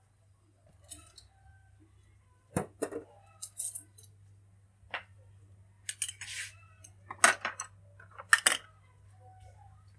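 Kitchen utensils and dishes clinking and clattering: a handful of sharp knocks from about two and a half seconds in to near the end, with a few brief scrapes in between. The loudest knocks come near the end.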